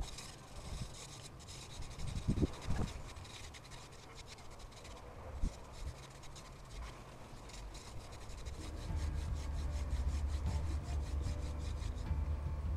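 Hand-drill fire-making: a mullein spindle spun between the palms, rubbing and rasping in the notch of an ivy hearth board in rapid strokes. A low rumble joins about two-thirds of the way in.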